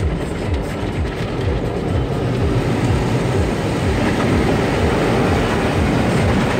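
Automatic car wash spraying water and soap onto the car, heard from inside the cabin: a steady rushing spray over a low, quickly pulsing mechanical rumble, getting a little louder about two seconds in.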